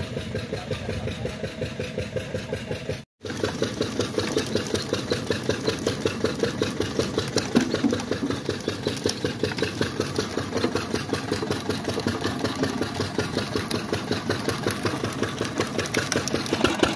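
Stationary single-cylinder diesel engine running with an even beat of about five pulses a second, under load driving a sugarcane crusher. The sound drops out completely for a moment about three seconds in.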